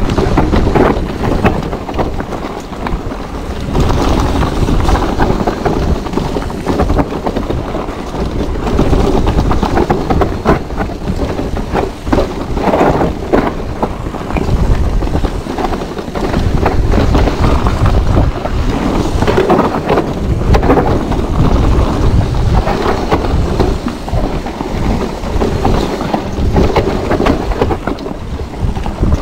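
Wind buffeting an action camera's microphone over the rumble and rattle of an electric mountain bike riding a dirt trail, with frequent knocks as the bike goes over bumps.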